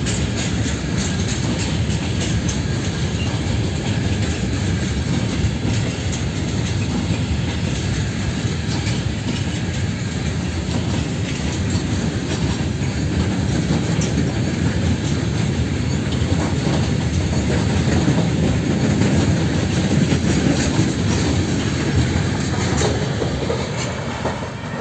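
Freight wagons (covered hoppers, then tank cars) rolling past: a steady rumble of wheels on rail with a clickety-clack over the rail joints.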